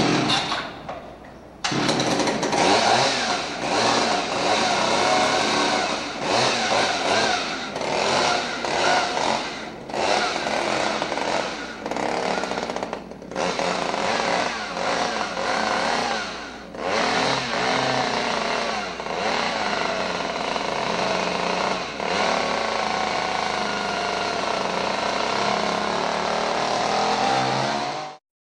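Chainsaw revving loudly and continuously, its pitch wavering, with a few brief dips where the throttle drops. It stops abruptly near the end.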